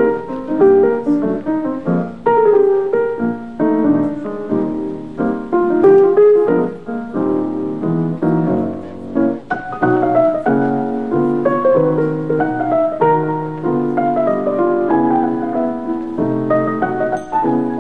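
Solo piano music playing a flowing melody, with no forging sounds standing out.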